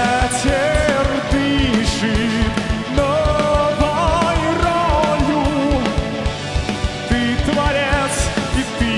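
Rock band playing live: an instrumental passage between sung lines, with a lead melody line with vibrato over a driving drum kit with a rapid kick drum.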